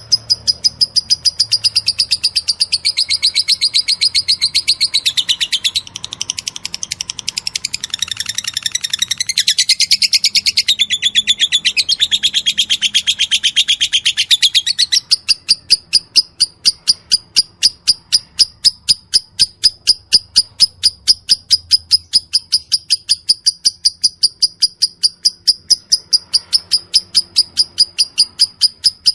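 Lovebird's 'ngetik' song: fast, high-pitched ticking chirps repeated in quick succession. The chirping is denser and more varied in the first half, then settles into an even run of sharp chirps, about three a second, from about halfway.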